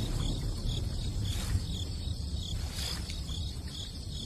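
Insects chirping steadily at about two chirps a second, over a low rumble of outdoor ambience.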